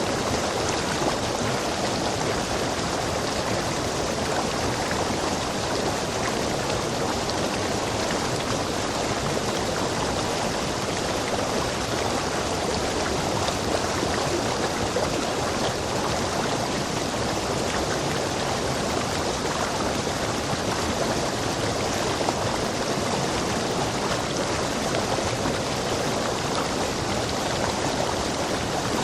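Rainforest stream rushing over rocks: a steady, unbroken rush of water.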